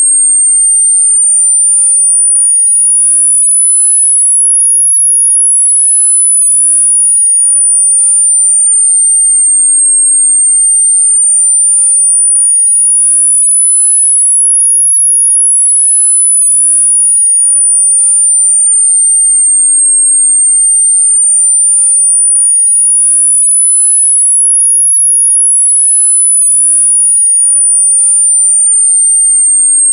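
A single very high-pitched electronic tone, a variable-sweep tinnitus masking sound, gliding smoothly up and down, rising and falling once about every ten seconds.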